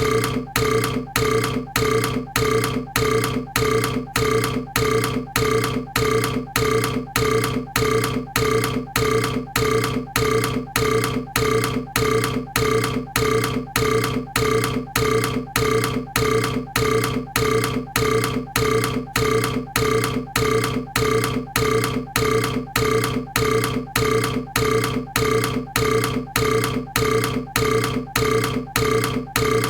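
A human burp repeated over and over at an even pace, about two a second, each repeat sounding the same as the last, like a single recorded burp played on a loop.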